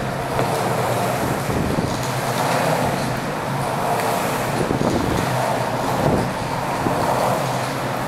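Longboard wheels rolling on a smooth concrete floor, a steady rumble with wind noise on the microphone.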